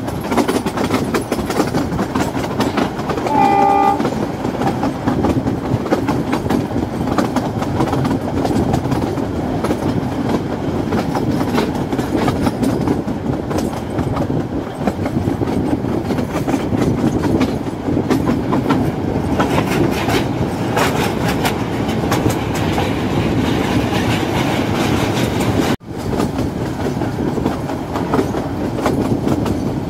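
Narrow-gauge Kangra Valley Railway train running, with a steady rumble and a clatter of wheels on the rails, heard from an open coach doorway. The locomotive's horn sounds once, briefly, about three and a half seconds in. The sound drops out for an instant near the end.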